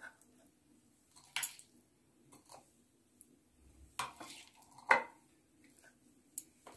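A spoon clinking and scraping against a glass jar as oily pickle is spooned into it: about five separate knocks and scrapes, the loudest a little under five seconds in.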